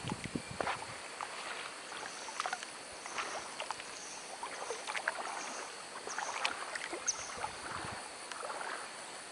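Shallow lake water lapping gently, with scattered small clicks and trickles over a steady high-pitched hum.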